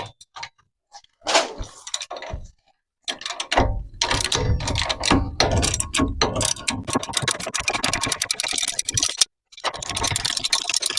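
Ratchet clicking rapidly as the loosened brake caliper bolts are run out, in two spells: a long one starting about three seconds in, and a shorter one near the end, after a few scattered knocks.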